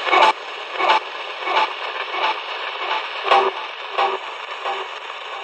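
Defiant spirit box sweeping through radio frequencies and playing through a speaker. A constant hiss of static is broken by short choppy bursts of broadcast sound, one every second or less, which the investigators read as spirit words such as "connect" and "hope".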